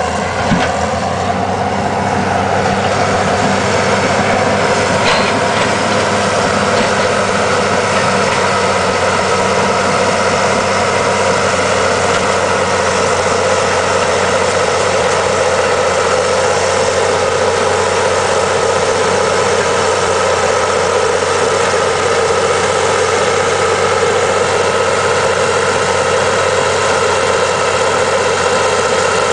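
Caterpillar D7H crawler dozer's six-cylinder diesel running steadily under load as its blade pushes a pile of topsoil.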